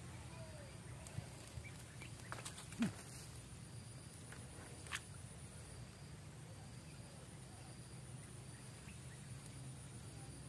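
Faint clicks and taps from handling a small just-landed fish and its float rig while unhooking it, the loudest about three seconds in, over a steady low hum.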